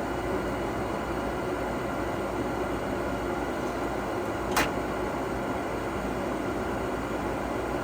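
Gas furnace running with a steady mechanical whir during an ignition retry, and a single sharp click about four and a half seconds in. The click is the kind of switching click the technician listens for as the control board steps through ignition.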